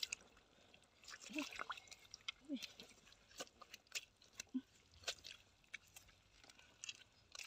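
Gloved hands digging in wet mud beneath a crust of dry, cracked soil: faint, irregular wet squelches and small clicks of mud and crumbling clods.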